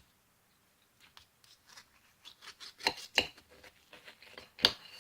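Eating sounds from a plate of crispy-skinned chicken thighs: a run of irregular soft clicks and scrapes, with a few sharper clicks about three seconds in and again near the end.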